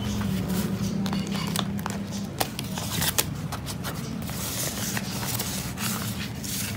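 Clear plastic zipper pouches and paper banknotes rustling and crinkling as the pouch pages of a cash-envelope ring binder are handled and flipped, with a few sharper clicks, the loudest about two and a half and three seconds in.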